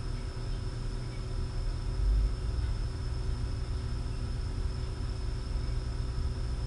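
Steady low rumble of room background noise with a faint, even high hum; the rumble swells briefly about two seconds in.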